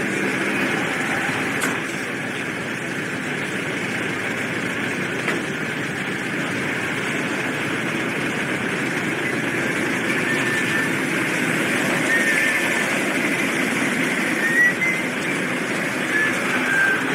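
Steady rumble of vehicle engines and traffic around a ferry terminal, through an old camcorder microphone, with a few short faint high squeaks near the end.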